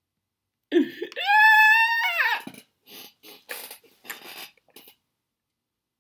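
A person's high-pitched yell that rises, holds steady for about a second and a half, then drops away, followed by a few short, softer vocal sounds that stop about five seconds in.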